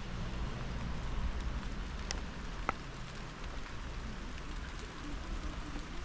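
Steady hiss of rain falling, with two sharp drips about two and two and a half seconds in, over a low rumble.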